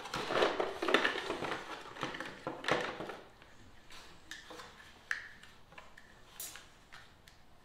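Kennel parts being handled: rustling and clattering for the first three seconds, then a few scattered sharp clicks and knocks.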